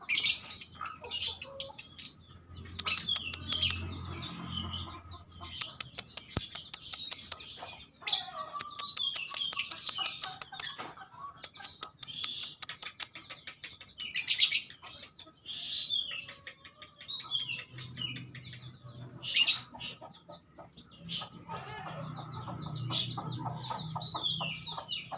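Birds chirping and calling over and over, with quick clicking trills and high chirps.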